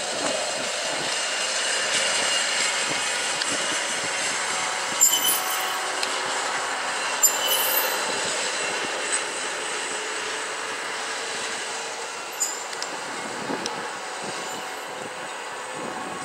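Hi-rail pickup truck running along the railroad track, its guide wheels rolling and squealing on the rail. A steady rolling noise is broken by short, sharp high squeaks, the clearest about five and seven seconds in.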